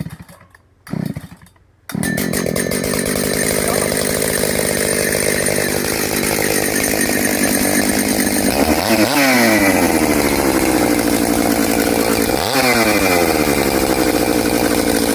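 Ex-army Husqvarna 181 two-stroke chainsaw being cold-started: a couple of brief sputters, then it catches about two seconds in and runs loud through its modified, straight-pipe-like muffler. The engine speed jumps and falls back twice, at about nine and twelve and a half seconds in.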